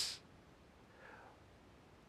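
Near silence: room tone in a pause between spoken sentences, with the man's last word trailing off at the very start and a faint soft breath-like sound about a second in.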